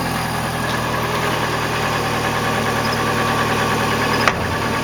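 Dodge Aries four-cylinder engine idling steadily while warming up, just started after sitting unused in a shop. A single sharp click about four seconds in.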